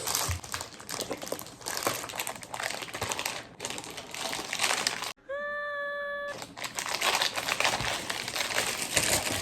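Plastic packaging crinkling and rustling as it is handled, in a run of small crackles. About five seconds in the crackling cuts off abruptly, a steady pitched tone sounds for about a second, and then the crinkling resumes.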